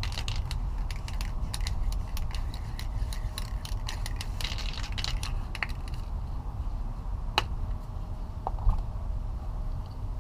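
Aerosol spray paint can being shaken, its mixing ball rattling in quick clicks for about six seconds, then stopping before spraying. A steady low rumble runs underneath, and two single clicks follow the rattling.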